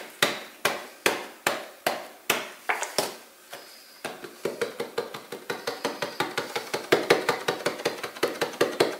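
Spice shaker jars shaken over raw pork, each shake giving a sharp click: about two a second at first, then, after a short pause, a quicker, denser run of shakes from about four seconds in.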